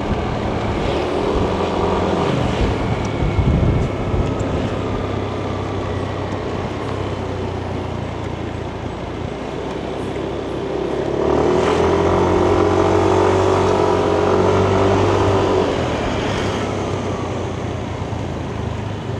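Yamaha Nmax 155 scooter's single-cylinder engine and CVT drive running under way, with road and traffic noise around it. The sound swells for about four seconds in the second half, then eases back.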